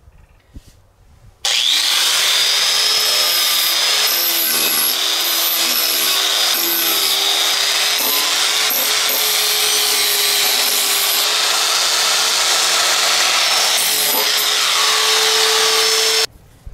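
Electric angle grinder fitted with a sanding disc, switched on about a second and a half in: the motor spins up with a rising whine, then the disc runs steadily against the edge of a steel plate, smoothing off its sharp edges, until it is switched off and stops abruptly near the end.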